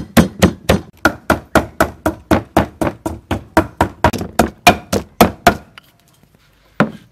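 Wooden pestle pounding red chillies and garlic in a mortar, a steady run of strokes at about four a second that stops about five and a half seconds in. One more single knock comes near the end.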